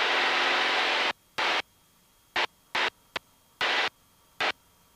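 Engine and wind noise of a Cessna in its climb, heard through the headset intercom as hissing bursts that the squelch switches on and off abruptly: one burst about a second long at the start, then about five short ones and a click.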